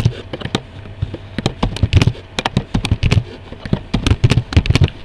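Keystrokes on a computer keyboard: quick, irregular clicks coming in short runs with brief pauses between them.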